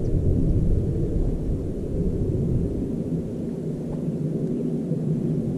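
Wind buffeting the camera's microphone: a steady, uneven low rumble with no clear tone.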